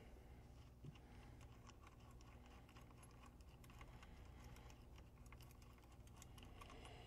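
Near silence, with faint scattered small clicks of a wrench and terminal hardware being handled as the field-winding cables are undone from the motor controller.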